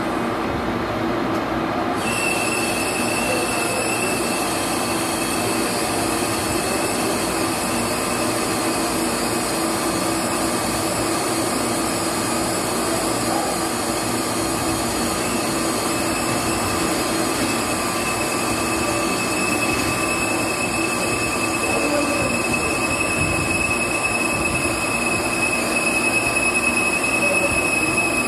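Metal-turning lathe running steadily with a low hum as it cuts a part, and a thin, steady high whine comes in about two seconds in and holds.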